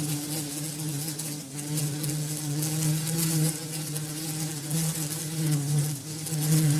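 Bumblebee buzzing in flight: a low, steady drone that wavers slightly in pitch and loudness, fading briefly about a second and a half in and again near the end.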